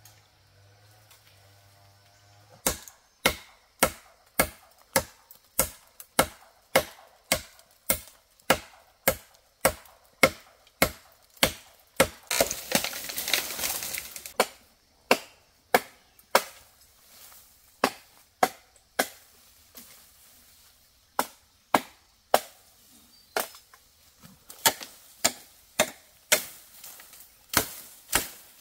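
A blade chopping into bamboo stems: sharp, dry strikes about twice a second, starting a few seconds in and pausing briefly now and then. Midway comes about two seconds of rushing, rustling noise as a cut bamboo stem comes down through the leaves.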